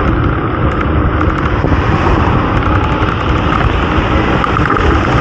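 Loud, steady rumble of road traffic mixed with wind buffeting the microphone.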